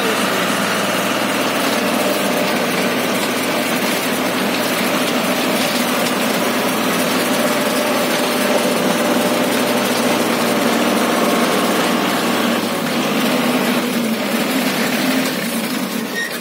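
Tractor engine running steadily under load while its PTO drives an offset disc harrow with a seeding attachment through the soil.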